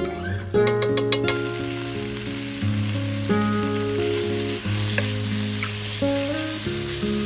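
Food frying in a hot pan with a steady sizzle that sets in about half a second in, over background acoustic guitar music.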